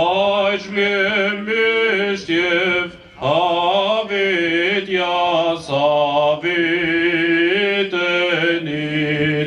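Armenian liturgical chant: a male voice chanting in long, wavering held notes with melodic turns. It breaks briefly for breath about three seconds in.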